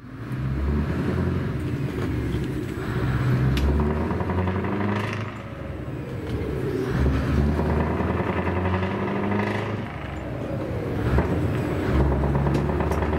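Scania 4-series V8 truck engine, very loud, heard from inside the cab while driving and accelerating. The engine note dips twice, about five and ten seconds in, then climbs again, as the truck changes up through the gears.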